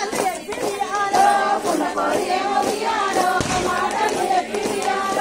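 A group of women singing a folk song together in chorus, their held notes bending from one to the next, with faint rhythmic hand claps under the singing.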